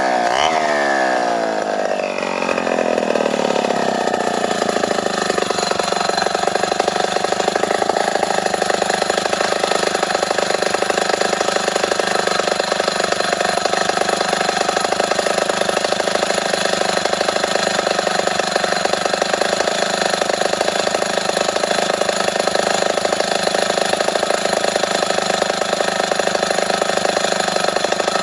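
Two-stroke chainsaw revving in quick rises and falls, then dropping within the first few seconds to a steady, even running note, typical of the throttle being released to idle.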